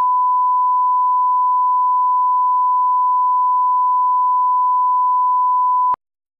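Broadcast line-up test tone accompanying colour bars: one steady, unbroken beep at a single pitch that cuts off suddenly with a small click about a second before the end.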